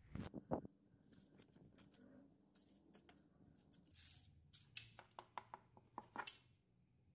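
Light clicks and short scrapes of a knife against a metal baking frame as it is run around the inside edge to free baked brioche buns, with a few sharper knocks from handling the pan near the start.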